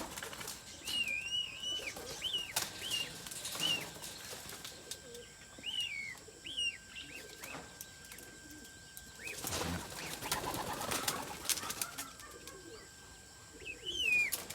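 Birds: repeated short, high chirps that bend up and down, with several bursts of wing flapping, the longest about ten seconds in.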